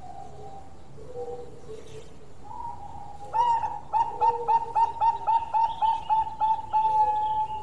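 Zebra dove (Bangkok perkutut) singing: after a few soft coos, a loud song begins about three seconds in, a quick even run of about a dozen short staccato coos ending in a longer held note.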